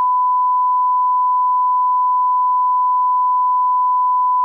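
Continuous 1 kHz sine-wave line-up tone, the reference tone that runs with colour bars in a broadcast 'bars and tone' leader: a single pure pitch held steady.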